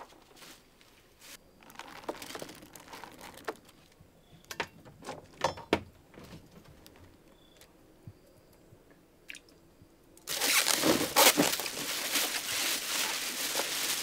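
Scattered crunching and rustling handling sounds, then a loud continuous rustling rush that starts suddenly about ten seconds in.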